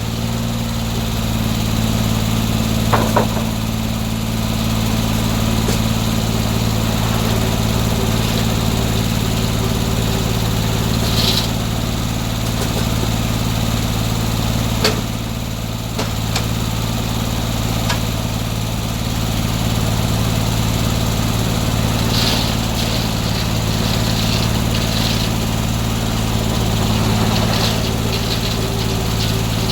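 Circular sawmill's gasoline engine running steadily with no cut under way. A few sharp knocks sound over it, one about three seconds in and another midway.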